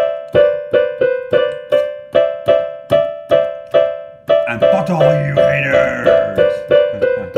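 Keyboard backing music, a steady string of repeated notes about two and a half a second, breaking off briefly about four seconds in and then resuming. Just after the break a man's wordless vocal sounds over it for about two seconds.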